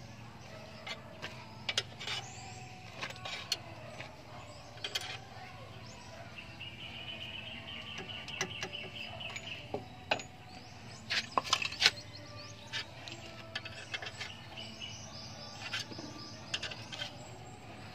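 Scattered light clinks and knocks of hand tools on metal suspension parts during hub-assembly work. A trilling chirp runs for about three seconds in the middle.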